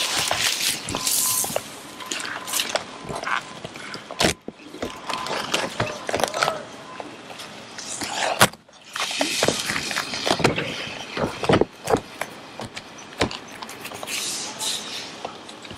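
Gloved hands working a peel-and-stick modified bitumen base sheet against a wall: crinkling of its plastic release film as it is peeled, with rubbing and scraping on the sheet. Irregular rustles and clicks, with one sharp snap about eight seconds in.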